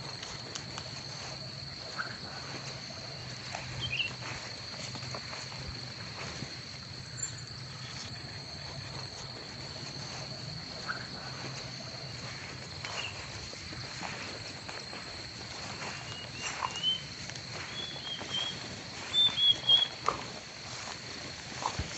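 Origami paper being handled, folded and creased by hand: scattered soft rustles and crackles, with a few louder sharp crinkles about three-quarters of the way through as the folds are pressed down. A steady high-pitched whine runs underneath.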